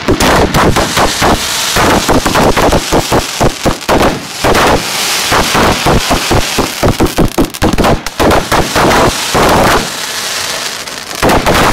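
Fireworks being fired at close range: rapid, near-continuous volleys of sharp bangs and crackling. The bangs ease into a steadier hiss about ten seconds in, then another loud burst comes near the end.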